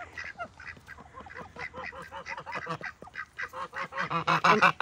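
Domestic drakes chattering: a fast run of short, raspy, nasal calls, growing louder toward the end.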